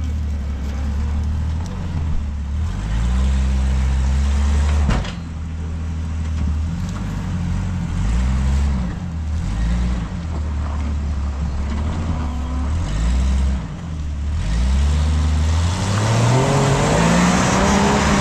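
Side-by-side UTV engine revving in short repeated bursts, rising and falling as it crawls over rock obstacles, with a sharp knock about five seconds in and a longer climbing rev near the end.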